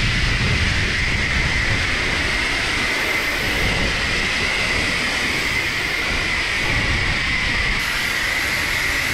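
Self-serve car wash pressure wand spraying bug-remover solution onto a car's bonnet: a steady, loud hiss of spray with a high whine running through it.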